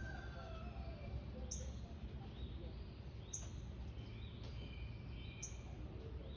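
Small birds chirping: a sharp, high chirp about every two seconds over softer chirps, with a steady low rumble underneath.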